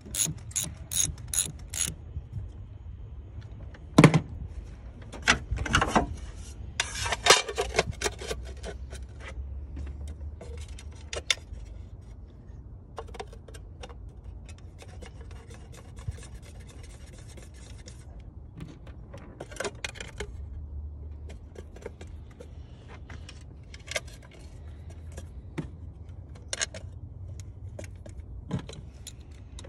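Socket ratchet clicking in quick, even strokes for about the first two seconds as it works a bolt on a Saab 9-3 engine. After that come a sharp knock about four seconds in, a brief clatter of clicks and rattling, then scattered clicks and scraping as tools and parts are handled on the engine top.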